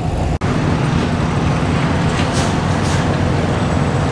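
Vehicle engine running with a steady low hum, broken by a brief cut-out about half a second in.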